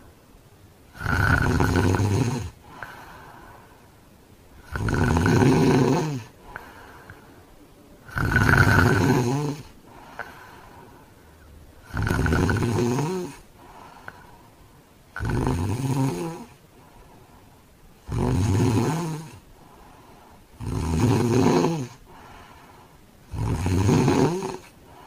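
A man snoring really heavily: eight loud snores, about one every three seconds, with quieter breathing between them.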